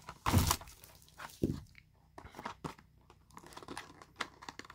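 Plastic shrink-wrap crinkling and a small cardboard box being handled and its end flap opened: a couple of louder rustles in the first second and a half, then quiet scattered rustles and taps.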